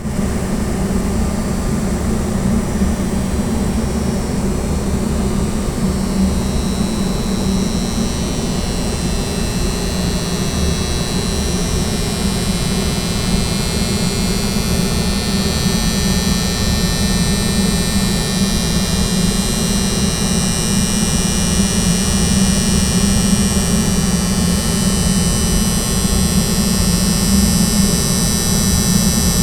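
Air handling unit soft starter humming loudly, a steady electrical hum with a deep rumble beneath it. A higher-pitched whine comes in about eight seconds in and grows stronger.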